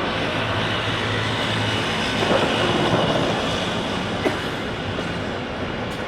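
Fireworks display: a steady rumble and crackle of bursts, mixed with crowd noise, with a sharp bang about four seconds in.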